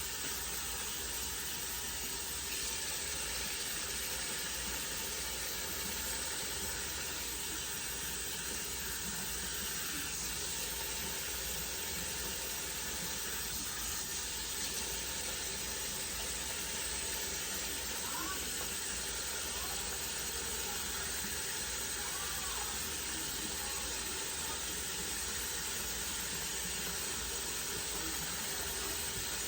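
Water running steadily from a tap: an even, unbroken hiss.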